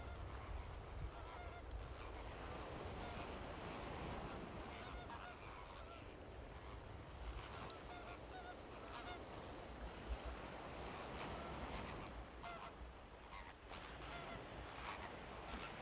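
A flock of greater flamingos honking continuously, many short goose-like calls overlapping, faint over a low rumble of wind and surf.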